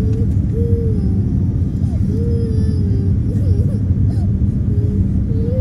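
Steady low rumble of a Boeing 787 airliner's cabin in descent, engine and airflow noise. Over it a young child's high voice rises and falls several times.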